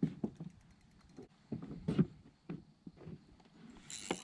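Scattered light knocks and thumps at irregular intervals in a small jon boat, with a steady hiss starting near the end.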